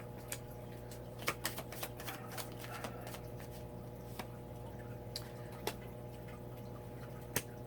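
Tarot cards being handled as they are drawn and laid out: scattered light clicks and taps, a few sharper than the rest, over a steady low hum.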